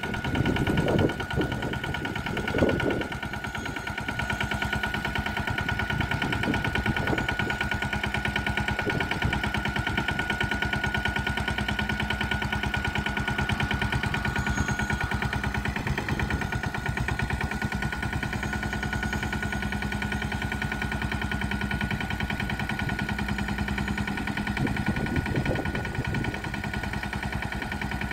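Engine of a Jyoti three-wheeled sanedo tractor running steadily with a rapid, even putter, with a steady high whine alongside it. It swells briefly at the start and again near the end.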